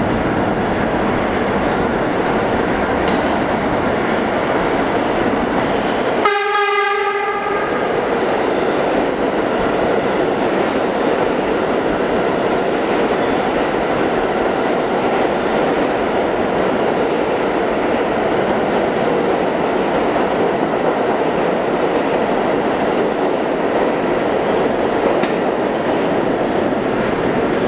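R46 subway train running into and through a station with steady rail and wheel noise as the cars pass along the platform. Its horn sounds once, about six seconds in, for roughly a second.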